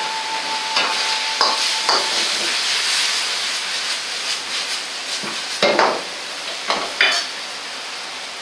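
Curry glass noodles and cabbage sizzling in an iron wok as they are stir-fried, a steady hiss broken by sharp metal knocks and scrapes of the ladle against the wok, the loudest between five and seven seconds in.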